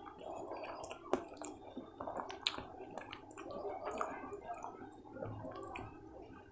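Fingers tearing a piece of paneer paratha and scooping up corn palak curry with it, then the bite going into the mouth near the end. Soft wet handling sounds with scattered sharp clicks.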